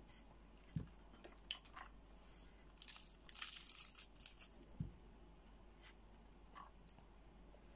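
Cooked brown crab being picked apart by hand: faint cracks and clicks of shell, with a brief crackling tear about three seconds in as meat is pulled from the shell. Two soft low thumps, a few seconds apart.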